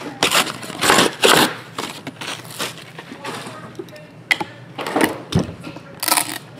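A sealed trading-card box being unwrapped and opened: plastic shrink-wrap crinkling and tearing in loud bursts near the start, then quieter handling, and more crinkling and cardboard sounds as the lid is lifted near the end.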